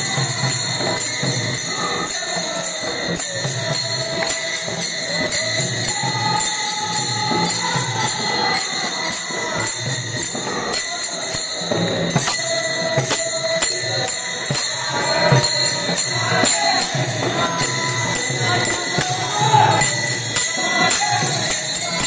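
A devotional bhajan: a group of men singing together to steady rhythmic clashing of many pairs of small brass hand cymbals (taal), with a two-headed barrel drum beneath.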